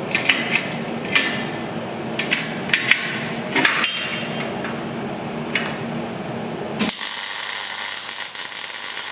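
Sharp metal clinks as steel parts and clamps are handled over a steady shop hum, then about seven seconds in a MIG welding arc strikes and crackles steadily while welding steel tube.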